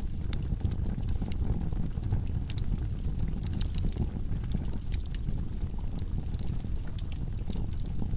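Wood logs burning in a fireplace: a steady low rumble of the fire with frequent small crackles and pops scattered throughout.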